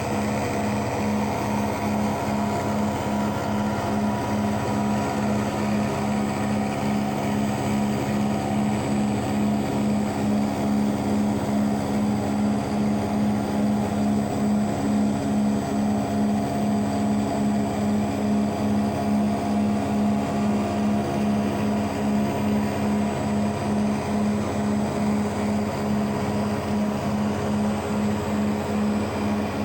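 Large-format CNC router milling, its spindle and drives running with a steady hum that pulses evenly.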